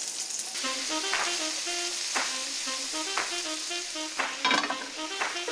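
Butter, garlic and oysters sizzling as they sauté in a frying pan, with a steady hiss. Light background music with short melodic notes and a soft beat about once a second plays over it.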